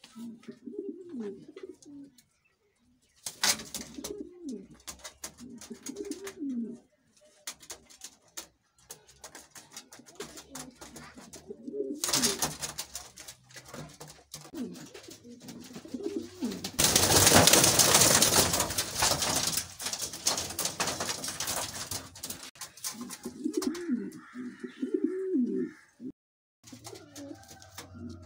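King pigeons cooing again and again, low coos that rise and fall. Scattered clicks and scratches run through the first half, and in the middle a loud noise lasting several seconds drowns out the coos.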